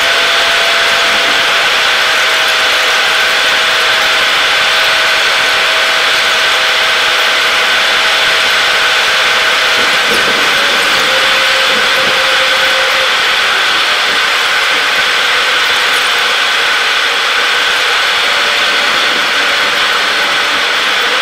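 Loud, steady cabin noise of a Boeing 737 in flight heard from a window seat over the wing: the rush of air and the jet engines, with a high hiss and a faint steady whine whose pitch drops a little about ten seconds in.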